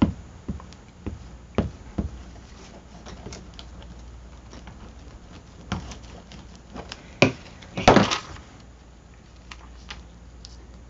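Collage paper being handled and pressed down in a spiral journal: scattered light taps and knocks on the page and table, with a brief rustle of paper about eight seconds in.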